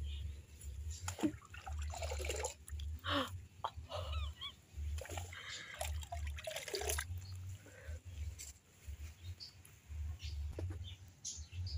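Wet squishing and rubbing of hands working shampoo lather into a dog's soaked fur, with a few short squeaks, over a pulsing low rumble.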